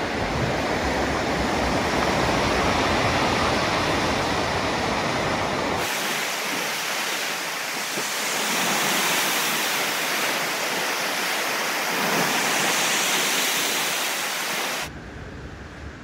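Ocean surf washing over and breaking around shoreline rocks, a steady rush of water that swells and eases. A low rumble underneath drops out about six seconds in, and the sound falls away sharply about a second before the end.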